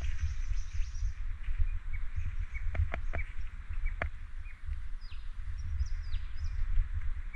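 Birds chirping and calling: scattered sharp chirps and a few short downward-sliding whistles about five and six seconds in, over a steady low rumble.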